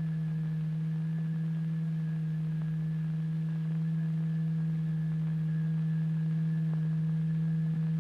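Steady low pure tone, a sine-like hum held at one pitch with faint overtones: the oscillator tone driving the vibrating layer of turpentine.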